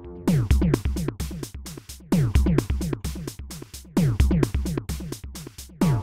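Electronic background music on a drum-machine beat: deep kicks that drop in pitch, with fast hi-hat ticks coming in about a quarter second in.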